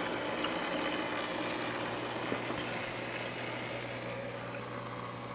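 Aquarium equipment running: a steady electric pump hum under the trickle and splash of circulating water from a small reef tank's hang-on-back power filter and protein skimmer.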